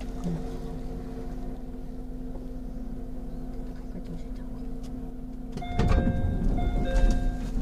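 Steady hum of a 211 series 5000 electric train, with fixed low tones. A little over five seconds in, a louder clatter and rumble starts, and a two-note electronic chime sounds twice over it.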